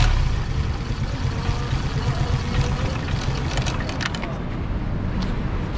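Suzuki Smash 115 single-cylinder four-stroke engine running steadily with its cam cover open, with a few short clicks. The clacking is from the camshaft's compression release (decompressor) letting go as it turns, which the mechanic takes as the cause of the engine's knocking sound.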